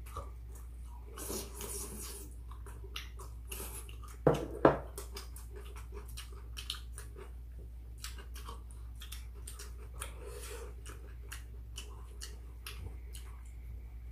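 Close-up eating sounds: chewing, lip smacking and chopsticks clicking against bowls of chicken and rice. About four seconds in come two short, loud sounds in quick succession, the loudest thing heard.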